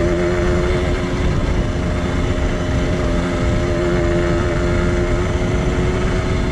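Yamaha DT 125 X's two-stroke single-cylinder engine running under way at a steady note, over a low rumble.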